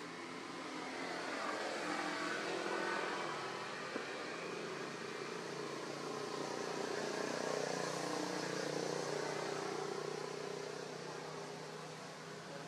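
A motor vehicle passing by, its engine and road noise swelling over the first couple of seconds and fading away near the end.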